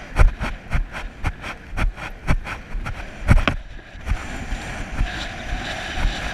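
Hoofbeats of a horse cantering on grass, about two strides a second, with wind noise on the microphone. The beat breaks off briefly a little past halfway, then resumes more faintly under a steadier wind hiss.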